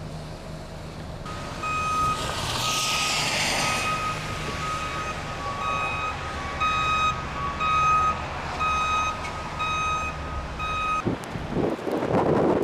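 Backup alarm on a plow-equipped CAT utility vehicle beeping in a steady repeated pattern as it reverses, over the low hum of its engine, with a brief rushing noise about two seconds in. Near the end the beeping stops and wind buffets the microphone.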